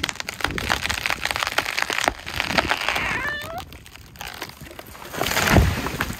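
A felled tree going over: wood cracking and snapping in quick pops, a short creaking squeal about three seconds in, then a heavy thud of the trunk hitting the ground about five and a half seconds in, the loudest sound.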